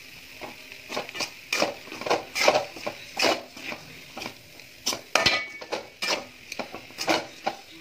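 A spatula stirring and tossing fried rice in a metal kadai, scraping and knocking against the pan in irregular strokes, roughly two a second.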